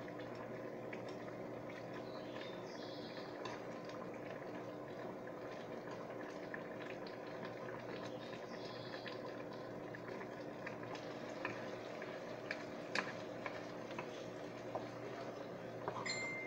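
Tomato sauce simmering and bubbling around chicken thighs in a pan over a gas burner, with a few short clicks and scrapes of a spoon against the pan, more of them in the second half.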